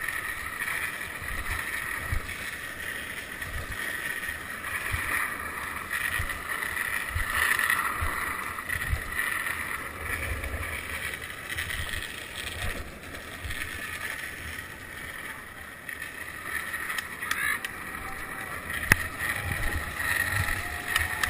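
Longboard wheels rolling fast on rough asphalt, heard close from the rider's board: a steady rolling rumble with irregular low thumps as the wheels cross cracks and bumps in the road, and one sharp knock near the end.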